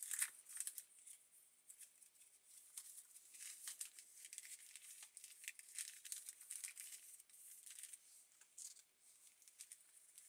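Faint, irregular rustling and crinkling of paper journal pages being handled and shuffled.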